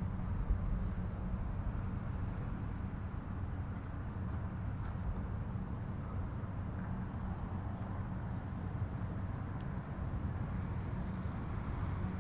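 Steady low rumble of a Honda City's engine and tyres heard from inside the cabin as the car drives off from a toll booth onto the expressway, with a faint, high, evenly pulsing whine above it.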